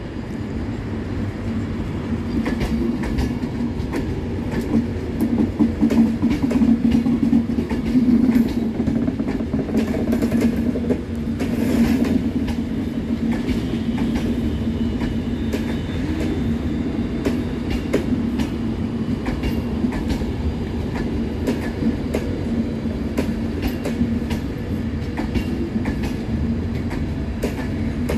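Class 390 Pendolino electric train running slowly into the station, a steady rumble with its wheels clicking over rail joints and points.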